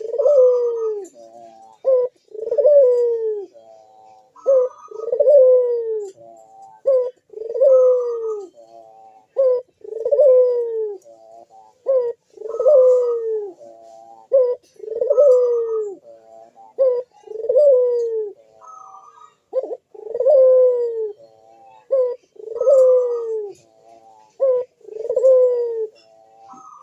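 A puter (Barbary dove) cooing steadily and persistently. Each phrase is a few short notes followed by a long coo that falls in pitch, repeated about every two and a half seconds.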